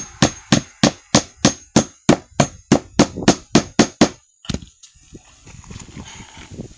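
Hammer blows on roofing nails, a fast even series of about three strikes a second with a metallic ring, stopping about four seconds in and followed by quieter scraping and handling of the shingles.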